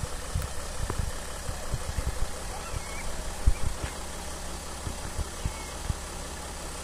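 Ambulance engine idling steadily, with irregular low thumps and knocks.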